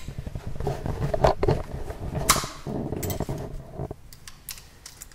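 Metal tools and small engine parts being handled during carburetor work: a busy run of clicks, clinks and rattles with one sharper clink a little past two seconds, thinning to a few scattered clicks after about four seconds.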